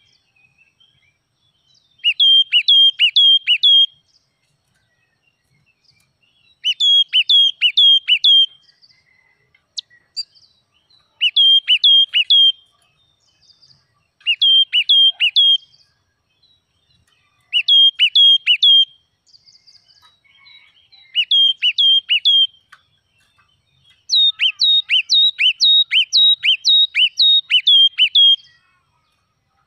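Yellow-cheeked tit singing loudly: short phrases of four to six quick, clear notes, each note dropping sharply in pitch, repeated about every four seconds with short pauses between. The last phrase near the end runs longer, about a dozen notes.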